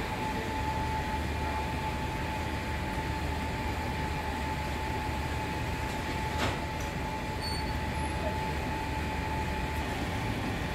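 Steady drone of bakery machinery: a low hum and hiss with a constant high whine over it, and a single sharp knock about six and a half seconds in.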